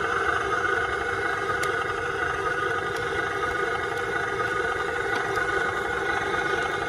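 Motor of a radio-controlled model tow truck running with a steady whine.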